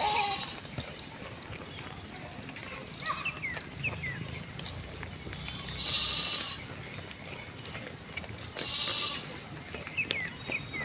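Sheep and lambs bleating, with two loud bleats about six and nine seconds in.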